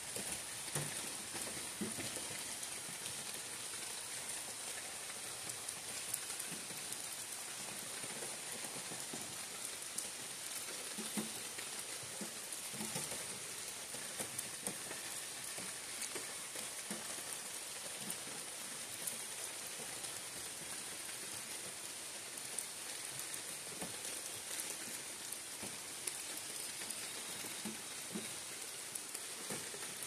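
Steady rain falling on leafy forest trees: an even hiss with many scattered separate drops ticking close by.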